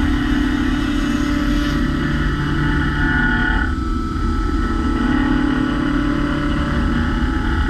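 DMG MORI M1 three-axis CNC mill machining a steel part: spindle and cutter running steadily with several sustained tones from the cut, the tones shifting about two seconds in and again about three and a half seconds in.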